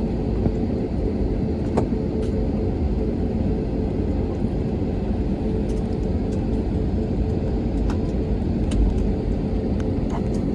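Airliner cabin noise while taxiing before takeoff: a steady low rumble with a steady hum, and faint scattered clicks and rattles.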